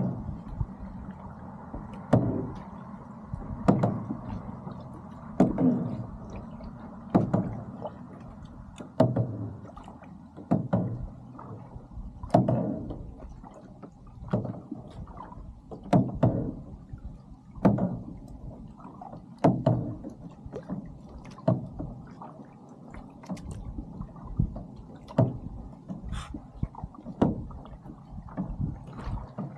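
Lake water slapping against the side of a moving boat's hull in a regular rhythm, about one slap every second and a half to two seconds, over a steady low rumble.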